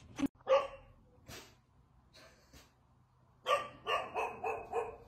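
A dog barks: one loud bark about half a second in, then a quick run of five or six barks near the end.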